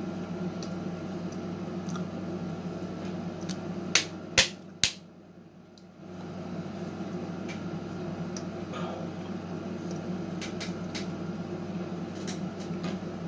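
A steady low electrical or fan-like hum of room noise, broken about four seconds in by three sharp clicks in quick succession, after which the hum drops away for about a second.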